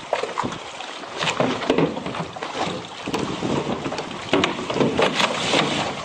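Water rushing and splashing along a sailing boat's hull in irregular surges, with wind buffeting the microphone.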